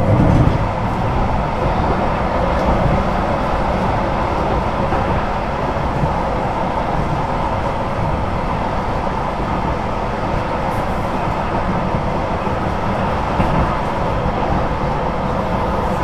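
Duewag/Kiepe B80D Stadtbahn (light-rail) car in steady running, an even rail-and-running noise.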